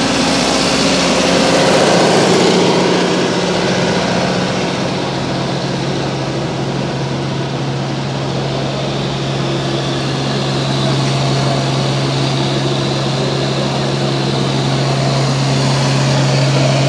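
A vehicle engine running with a steady low hum, with a louder rush of noise about two seconds in.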